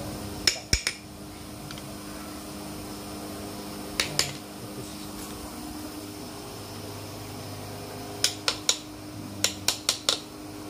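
Sharp metallic clicks and taps of tools against blower parts being worked on: a pair about half a second in, another pair about four seconds in, and a quick run of about seven near the end, over a steady machine hum.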